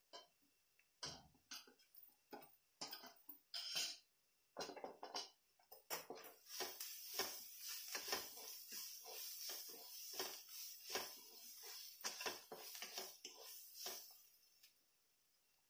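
Black spatula stirring and scraping diced paneer, onion and vegetables frying in a nonstick kadhai: a few separate strokes at first, then fast continuous stirring with a hiss from about six seconds in, fading near the end.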